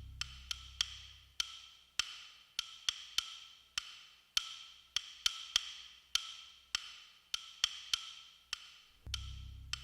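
Background music: a sparse percussion track of wood-block-like ticks, two or three a second, each with a short ringing tone, over a low bass swell that fades and comes back near the end.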